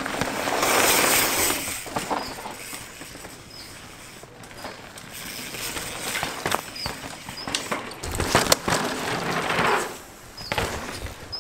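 Downhill mountain bike passing on a loose dirt trail: tyres crunching and skidding over dirt and stones. The sound swells about a second in and again in the second half, with a few sharp knocks from the bike near the end.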